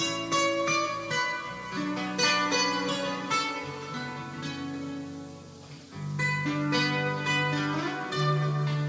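Instrumental music led by a plucked-string instrument, with held bass notes, played back on a Panasonic cassette deck. It grows quieter for a moment about five seconds in, then comes back.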